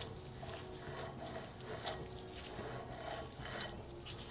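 Faint, scattered light metal clicks as a steel gear and its roller bearing are slid and settled by hand onto a Subaru STI six-speed gearbox's main shaft, over a low steady hum.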